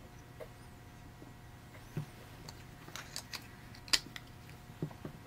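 Scattered light clicks and taps of small plastic parts and tools being handled on a silicone work mat: 3D-printed motor mounts and yellow TT gear motors being set down and picked up. The sharpest click comes a little before four seconds in.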